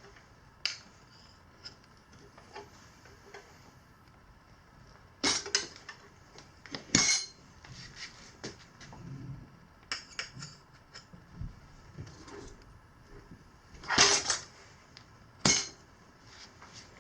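Metal tire levers clinking and scraping against the wheel rim while working a stiff knobby tire's bead on by hand: irregular sharp clanks, a few much louder than the rest.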